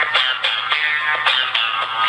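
Background music with a quick beat of plucked, guitar-like notes, about four strikes a second.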